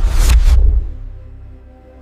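Cinematic background music: a whoosh with a deep bass hit in the first half-second, then held tones fading away.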